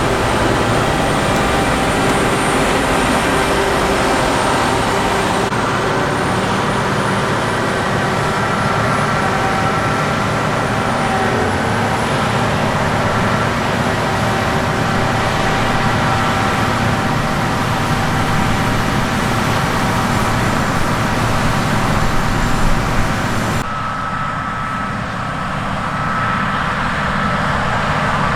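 Heavy harvest machinery running steadily: a diesel engine with a constant mechanical din and several high, steady whines from drives and hydraulics. The mix changes abruptly twice, about six seconds in and near the end, where it gets a little quieter.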